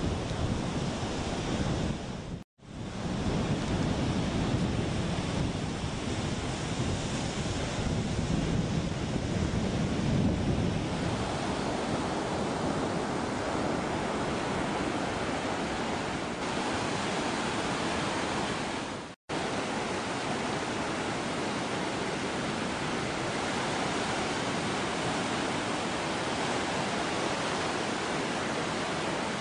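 Surf rushing on a beach with wind buffeting the microphone, a steady rushing noise. It breaks off for an instant twice, a few seconds in and again about two-thirds of the way through.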